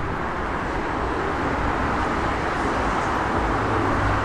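Steady roar of road traffic, an even wash of noise with no single vehicle standing out.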